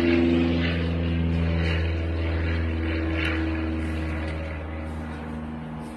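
A steady low mechanical drone, loudest near the start and slowly fading.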